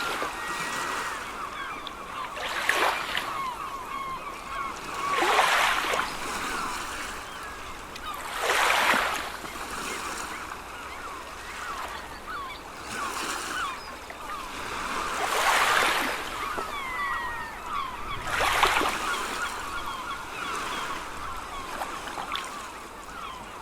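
Sea waves washing in every few seconds, each surge swelling and falling away, under a constant chatter of many seagulls calling.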